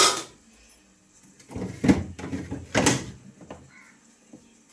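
A refrigerator being opened and emptied: a knock right at the start, then a burst of knocking and scraping from its doors and plastic compartments between about one and a half and three seconds in, followed by a few light taps.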